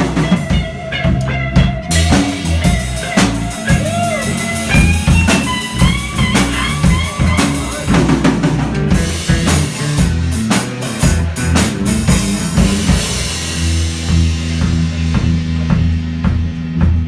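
Live blues band playing an instrumental passage: drum kit with snare and bass drum under a bass line, and a lead instrument bending notes. Cymbals wash over the middle, then the drums drop back about two thirds of the way through, leaving sustained low chords.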